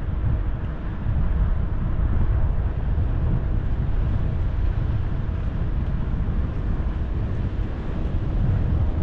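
Wind rushing over the microphone of a camera mounted on a moving bicycle, a steady low rumble with tyre and road noise underneath.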